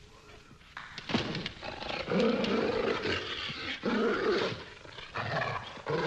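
Dog snarling and growling aggressively, starting about a second in and going on in several bouts with brief pauses.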